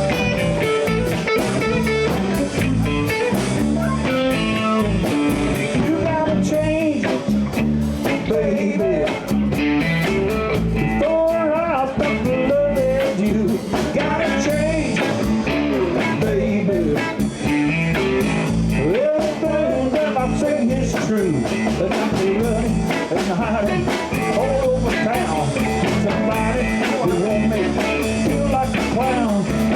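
Live blues band playing an instrumental passage: electric guitar, bass and drums keep a steady groove while a lead line bends and slides above them.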